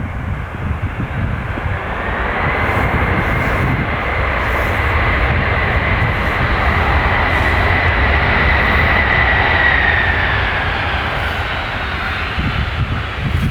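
Jet airliner passing close by: a loud rushing engine noise that builds and then eases, with a steady high fan whine that drops in pitch as the aircraft goes past.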